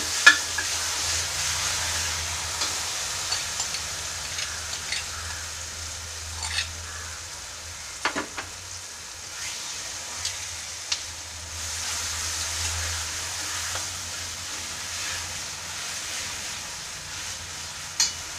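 Ground ripe nendran banana paste frying in ghee in a brass pan: a steady sizzle while it is roasted. A steel spoon stirs it, with scattered clicks and scrapes against the pan, the sharpest just at the start.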